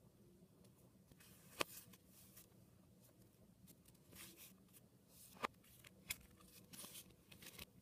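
Sheets of paper handled on a wooden tabletop: faint rustling and sliding of paper, with three sharp clicks, the first about a second and a half in and two more close together past the middle.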